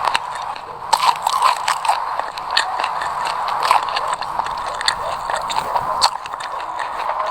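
Close-miked chewing of a mouthful of sesame seeds: a steady crunching crackle made of many small clicks.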